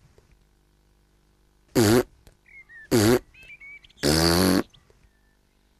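Cartoon piglet hiccuping three times, about a second apart, with faint high chirps in between.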